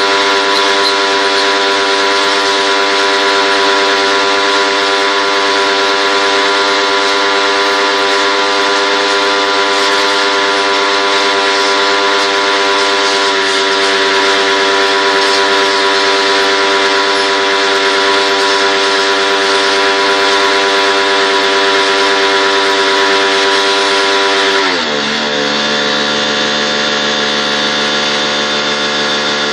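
A machine's electric motor running with a loud, steady hum, which drops suddenly to a lower pitch about 25 seconds in and keeps running.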